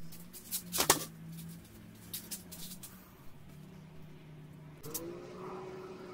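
A few sharp knocks and clatters, the loudest about a second in and another cluster around two seconds, over a steady low hum. A second, higher steady tone comes in near five seconds.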